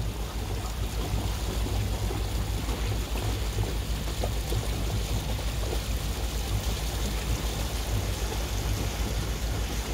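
Rushing water and wind noise aboard a moving boat under way, a steady hiss over a fluttering low rumble.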